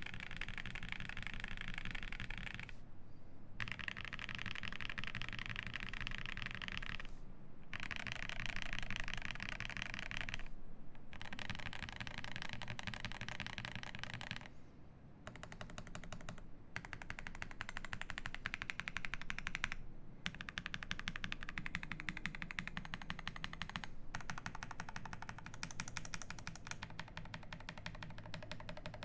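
Fast typing on a Cyberboard R3 mechanical keyboard with lubed Cow (UHMWPE) switches on an FR4 plate and GMK keycaps: a dense, continuous stream of keystroke clacks, broken by short pauses every few seconds.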